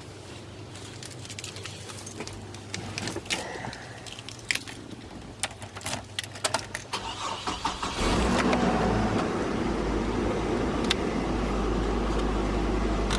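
Scattered clicks and rattles of keys and handling, then about eight seconds in the Hummer H3's engine starts and runs steadily, much louder than the faint hum before it.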